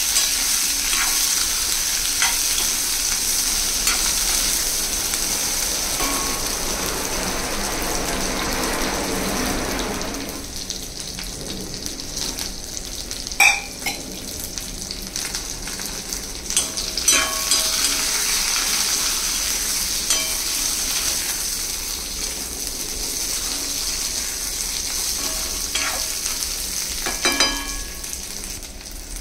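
Small brinjals, drumstick pieces and onion sizzling in hot oil in a kadai, being sautéed. They are stirred and scraped with a ladle for about the first ten seconds, then left to fry more quietly, with a few sharp clinks of the ladle against the pan.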